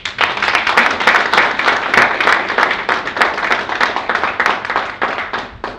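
An audience applauding: dense, steady clapping of many hands that cuts off suddenly near the end.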